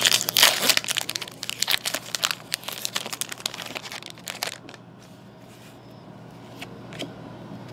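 Foil trading-card pack wrapper being torn open and crinkled for about four and a half seconds, then a few light clicks as the cards inside are handled and flicked through.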